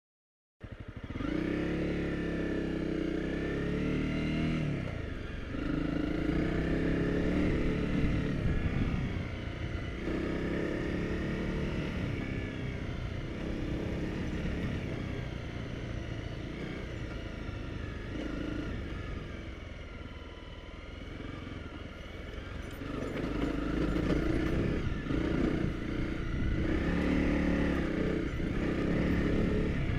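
Honda CRF250L Rally's single-cylinder four-stroke engine running while the bike is ridden along a dirt track, heard from on the bike, its revs rising and falling with the throttle. It cuts in abruptly just after the start, eases off briefly about two-thirds through, then picks up again.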